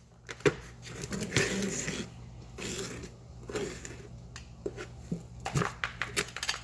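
Tile mortar being mixed by hand with a stick in a container, with water poured in: irregular knocks and scraping.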